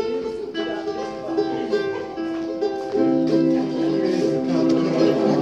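A ukulele band strumming a song together, with long held melody notes over the strumming; the playing grows fuller about halfway through.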